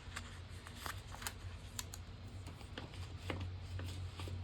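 Light clicks and crinkles of sticker sheets and paper being handled, with stickers peeled and pressed onto planner pages, over a steady low hum.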